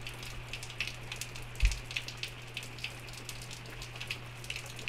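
Rain falling and dripping, heard as many irregular sharp ticks over a steady low hum, with one dull thump about one and a half seconds in.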